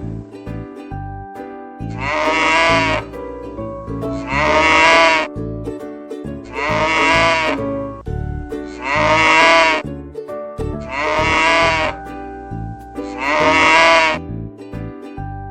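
A farm animal bleating over and over, each wavering bleat about a second long and coming roughly every two seconds, over a steady children's music backing.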